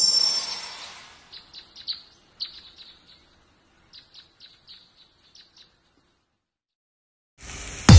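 Bright shimmering burst with high ringing tones that fades over about a second, followed by short bird chirps at uneven spacing for a few seconds, a pause, and a rising swell near the end.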